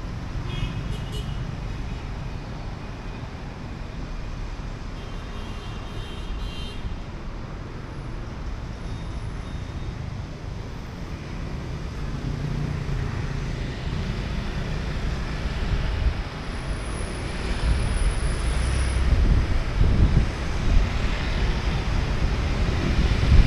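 Steady street traffic noise, growing louder from about halfway through, with stronger low rumbles near the end.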